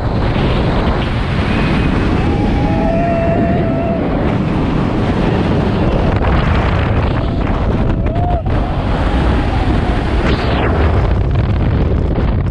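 Loud wind rushing over the camera microphone as a steel roller coaster train, the Diamondback, drops and races along its track. Riders yell out a couple of times, around two to four seconds in and again near eight seconds.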